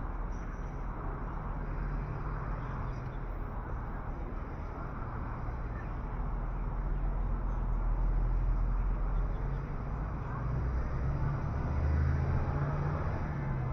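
Steady low rumble of vehicle noise, swelling a little in the middle and again near the end.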